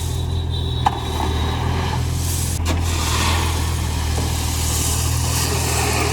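Mini excavator's engine running steadily under work, with a sharp click about a second in and a lighter knock a little later.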